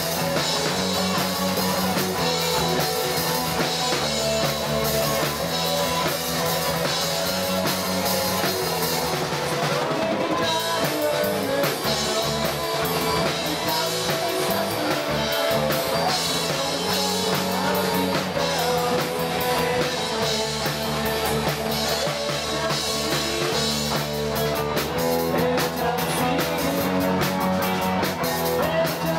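Live rock band playing: electric guitars, bass guitar and drum kit, loud and continuous.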